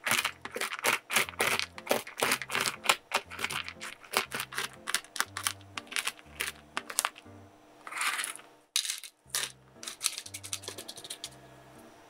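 Chef's knife rapidly chopping walnuts on a cutting board: sharp, clicky knocks about four a second, played at triple speed. About eight seconds in there is a short rustling sweep, then a few more scattered chops, over soft background music.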